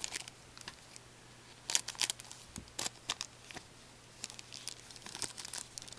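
A foil trading-card pack wrapper being handled and torn open, giving quiet, scattered crinkles and crackles.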